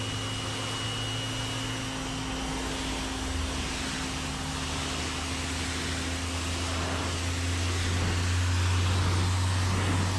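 Pressure washer running steadily: a low motor hum under the hiss of the water jet rinsing soap off a car's paint and windshield.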